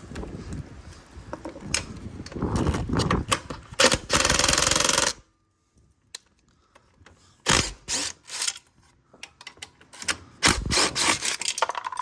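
Cordless drill driving a 13 mm socket, rattling as it backs out the exhaust silencer bolts, then running steadily before stopping abruptly about five seconds in. Later come short clusters of sharp metallic clinks and clatter.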